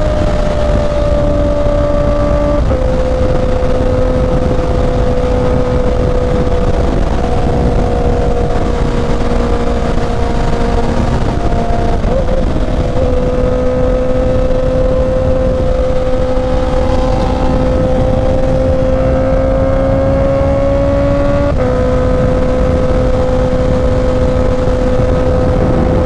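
Honda CB650R's inline-four engine running at steady highway cruising speed, with heavy wind rush on the microphone. The engine note drops a step about three seconds in, climbs slowly, then drops again near the end as the bike shifts up from fifth to sixth gear.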